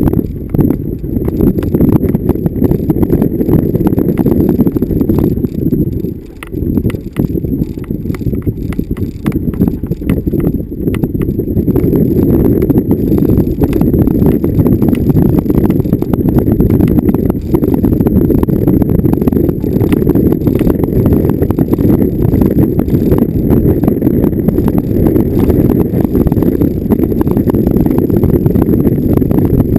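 A vehicle driving over rough, bumpy off-road ground: a constant low rumble with frequent knocks and rattles, easing briefly about six seconds in.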